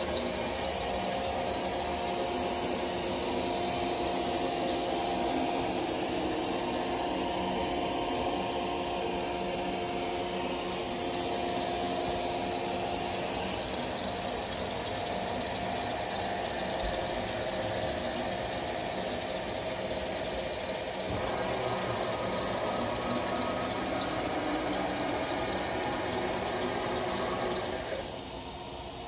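Mollart three-spindle CNC gundrill running: a steady machine hum with several held tones over a hiss. The sound shifts about three-quarters of the way through and drops away just before the end.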